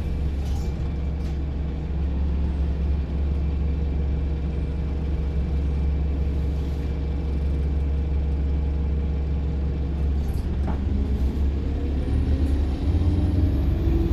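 Diesel engine of a London double-decker bus heard from on board, running steadily at low revs. Near the end it gets louder and rises in pitch as the bus pulls away, with a faint high whistle rising with it.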